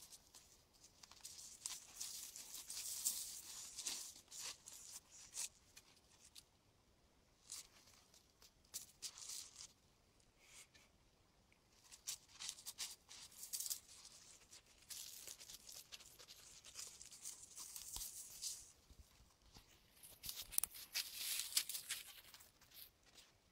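Faint footsteps crunching and rustling on dry fallen leaves and grit of a dirt track, in irregular clusters of crackles with short quiet gaps between them.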